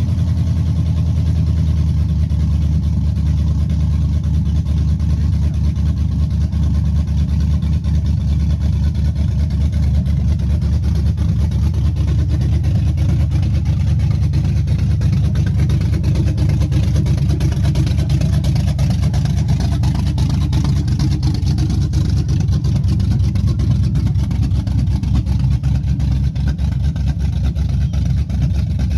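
Cammed GM 5.3-litre V8, freshly rebuilt 20 over, idling loud and steady with no exhaust pipes fitted. The idle is choppy enough to rock the truck, typical of an aftermarket cam.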